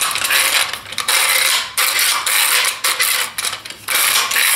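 Movable jaw of a Bessey K-body clamp sliding back and forth along its steel bar, cleaned of glue residue so it runs freely, in several strokes about a second long with short breaks between them.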